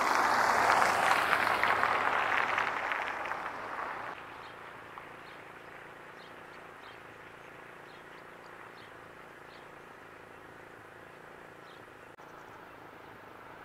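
A passing vehicle's rushing road noise, loudest at the start and fading away about four seconds in. After that a quiet steady outdoor background remains, with a dozen or so faint, short, high bird chirps.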